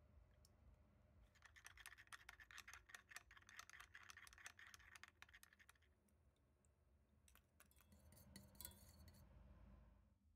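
Near silence, with faint, rapid, irregular crackling clicks from about one to six seconds in and again shortly before the end.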